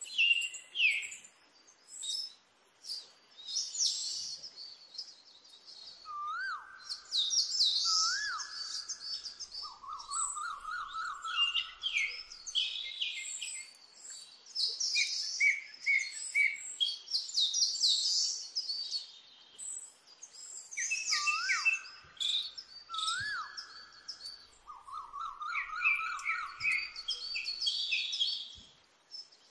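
Birds chirping and trilling, several calls overlapping. A short phrase of two rising whistles followed by a trill is heard twice, about 15 seconds apart, as in a looped birdsong recording.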